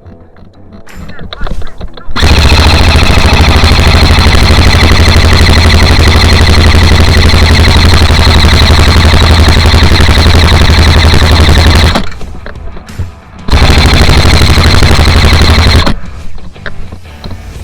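Airsoft electric gun firing long full-auto bursts close to the microphone, very loud and distorted: one burst of about ten seconds, then after a short break a second of two to three seconds, each starting and stopping abruptly.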